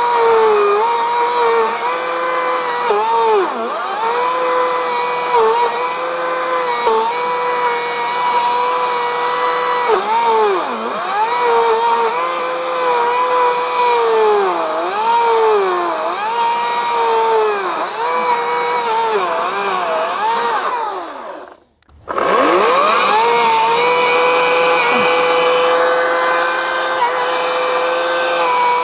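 Ryobi 40V brushless cordless chainsaw (RY40580) cutting into a stump: its motor and chain whine sags in pitch again and again as it loads up in the wood, then recovers. About 21 seconds in it winds down and stops for a moment, then spins back up and runs steadily.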